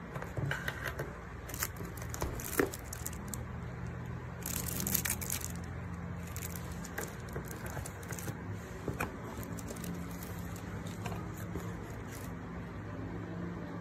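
Handling noises: scattered clicks and crinkling, with a brief rush like tearing about five seconds in, over a steady low hum.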